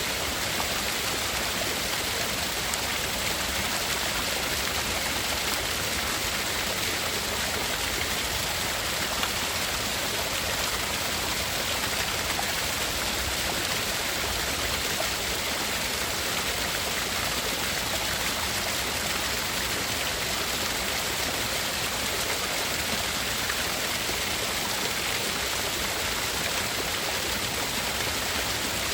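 Steady tinnitus-masking noise: an even, unbroken hiss-like rush with no rhythm or change, strongest in the upper range and with two narrow gaps in the very highest pitches.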